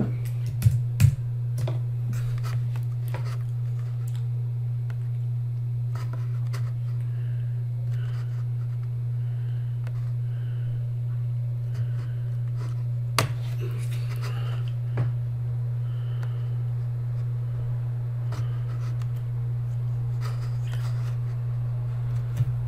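Steady low hum with a few sharp clicks, the loudest two about a second in and another near the middle, as a computer mouse is clicked while drawing.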